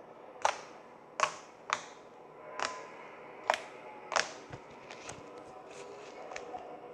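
Slime being poked with a finger, trapped air bubbles popping in sharp clicks: six loud pops over the first four seconds or so, then a few fainter ones.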